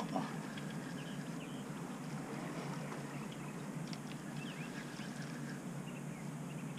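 Steady low rush of turbulent water below a dam, with scattered short, faint bird calls over it.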